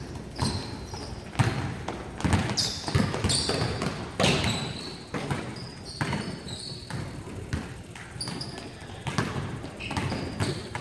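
Basketballs being dribbled on a hardwood gym floor: irregular bounces from several players at once, with short high squeaks of sneakers on the court.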